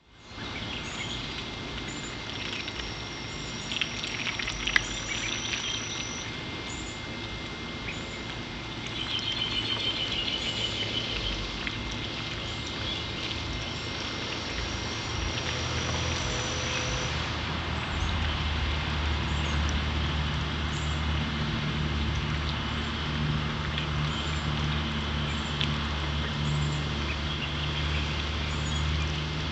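A flock of young ducklings peeping softly over steady outdoor background noise. A low steady hum comes in about two-thirds of the way through.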